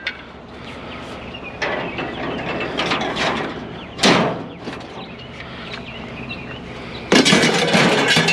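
Scraping, rustling and knocking of scrap items being handled and moved onto a pile, with a sharp knock about four seconds in and a louder stretch of scraping near the end.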